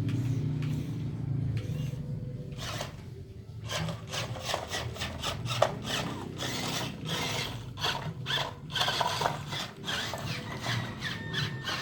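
Small electric motors of RC construction models whirring with a low hum, joined about two and a half seconds in by repeated gritty scraping and rasping of sand.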